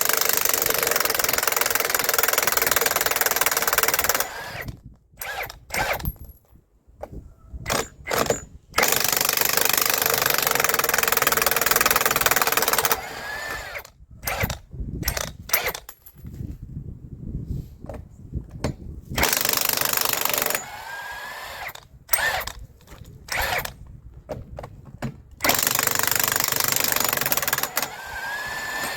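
Impact wrench hammering in four long bursts of a few seconds each, with short trigger blips and clicks in between, as lug nuts are run off a semi truck's steer wheel.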